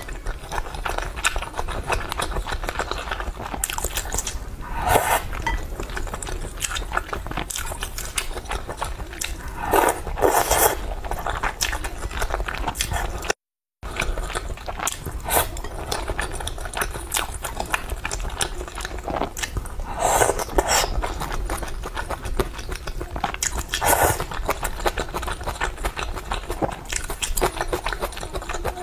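Close-miked chewing and biting of soft, broth-soaked malatang pieces, with wet mouth clicks and a louder burst every few seconds. The sound cuts out briefly about halfway through.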